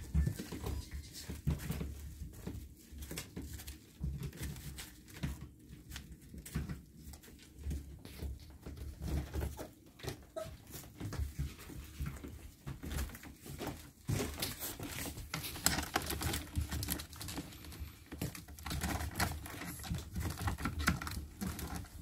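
Husky puppies scrambling in a plastic tub: irregular tapping and scratching of paws and claws on the plastic, with rustling of the bedding, busiest about two-thirds of the way through.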